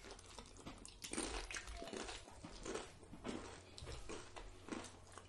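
Faint, close-up chewing and crunching of crisp food, tortilla chips being bitten and chewed, as a run of irregular small crunches.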